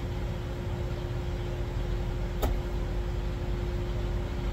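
Steady low hum of an idling diesel semi-truck engine, with a single short click about two and a half seconds in.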